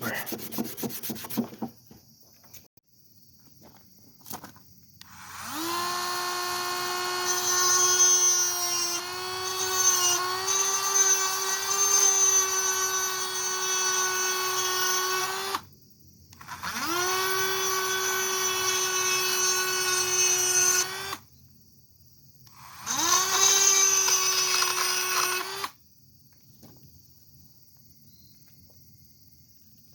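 A small electric power tool, such as a drill, run three times while shaping a wooden duck-call part. Each time it spins up with a quick rising whine, holds a steady pitch, and then stops. The first run is the longest, about ten seconds, and two shorter runs follow.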